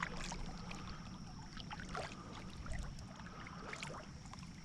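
Small water sounds against a kayak hull: faint lapping and trickling, with scattered light clicks.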